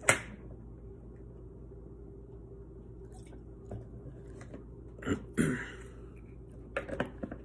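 Pause in talking: small mouth sounds, lip smacks and a breath, over a steady low hum. There is a sharp smack right at the start, a breath about five seconds in and a few clicks near the end.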